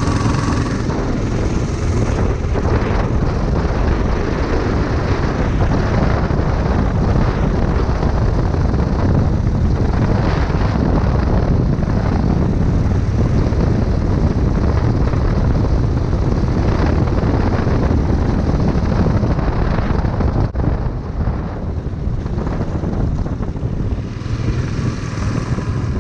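Go-kart's small gas engine pulling hard at full throttle on a top-speed run. It eases off about twenty seconds in as the kart slows.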